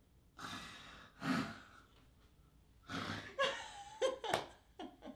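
A woman breathing hard in gasps, then breaking into short bursts of laughter about three seconds in.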